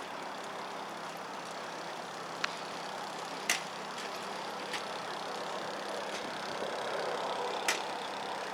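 A motor vehicle engine running steadily under outdoor background noise, with a few sharp clicks.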